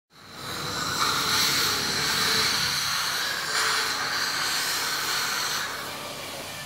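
Dental suction hose drawing air at the patient's mouth: a steady hiss that eases a little near the end.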